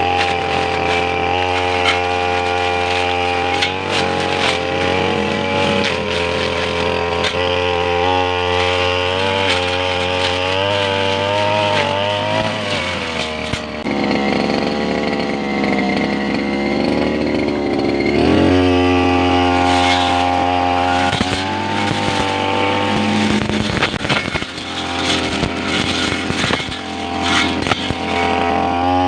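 Two-stroke brush cutter engine running at high revs while cutting grass, its pitch wavering with the load. Around the middle it turns rougher and less even for a few seconds before settling back to its steady high note, and it wavers again near the end.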